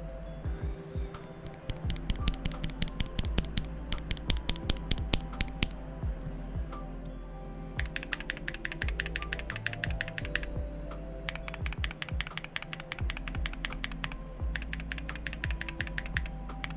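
Typing on a Tofu65 mechanical keyboard with Tangerine C3 linear switches, a brass plate and PBT keycaps: a run of slower, louder keystrokes at about three or four a second, then faster typing in several runs, over soft background music.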